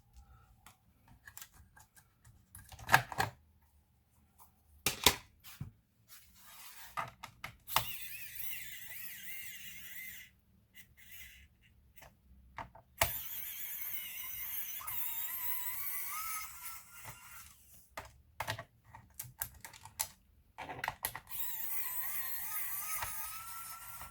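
Sharp plastic clicks and taps with stretches of scraping and rustling, the handling of a laptop's case and parts while it is taken apart.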